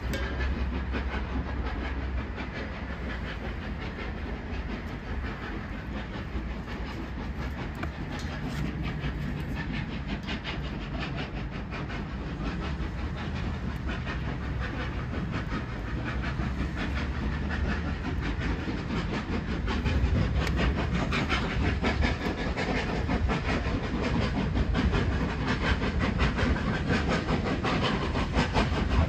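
A train running on the track: a steady rumble with fast, dense clicking, growing louder about twenty seconds in.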